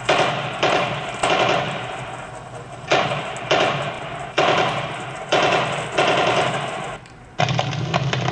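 Gunshot sound effects played back through computer speakers: about eight sharp shots, each with a short ringing tail. Near the end a steady crackling fire sound effect takes over.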